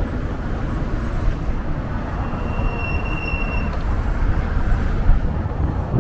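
Steady rumble of city street traffic, with a thin high whine that starts about two seconds in and lasts about a second and a half.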